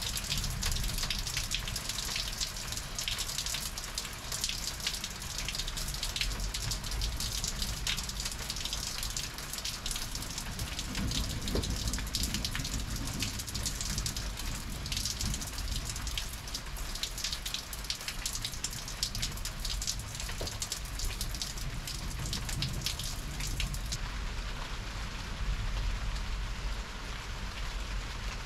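Heavy thunderstorm rain falling steadily, a continuous hiss dotted with the ticks of many individual drops striking surfaces.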